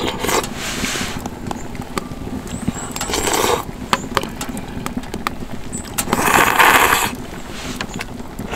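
Someone slurping ramen noodles from a bowl: three noisy slurps, one at the start, one about three seconds in and the loudest about six seconds in, with faint scattered clicks between.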